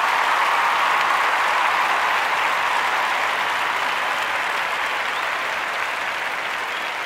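Crowd applause, a dense even clapping that slowly fades.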